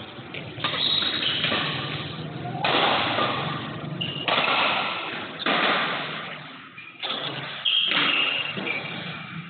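Badminton rally: rackets striking the shuttlecock about six times, a second or two apart. Each sharp hit is followed by a long echo in the hall.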